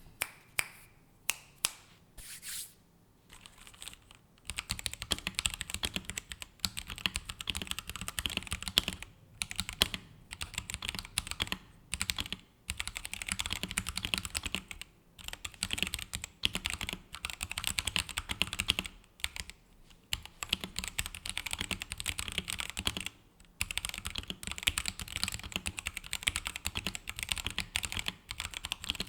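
Royal Kludge RK84 mechanical keyboard with RK brown (tactile) switches being typed on. A few separate keystrokes come first, then from about four seconds in there is fast, continuous typing broken by short pauses.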